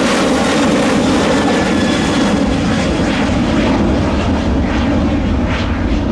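A Boeing 737-800's twin CFM56-7B turbofan engines climbing out after takeoff: a loud, steady jet roar, its high end fading over the last couple of seconds as the aircraft draws away.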